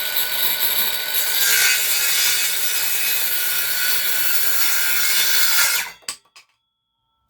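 Teeno cordless circular saw, fitted with a 165 mm 24-tooth blade, cutting through a piece of soft pine with a steady, loud sawing noise. The cut stops abruptly about six seconds in, followed by a couple of short knocks.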